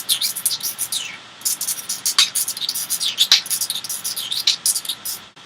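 Beatboxer's mouth sounds: rapid high clicks, about eight to ten a second, mixed with short falling chirps that sound squeaky and bird-like, with a short pause about a second in.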